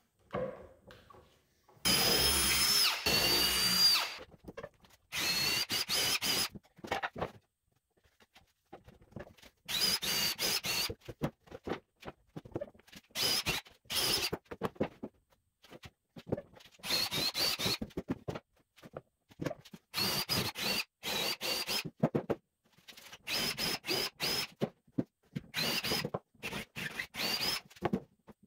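Ridgid cordless drill/driver running into plywood in a series of short bursts, each a second or two long, with its motor whine and pauses between. The longest burst comes about two seconds in.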